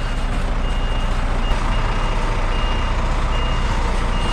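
Scania G-cab tractor unit's diesel engine running as the truck reverses slowly down the ramps off a low-loader trailer, with a reversing alarm beeping at a steady pace, about five beeps.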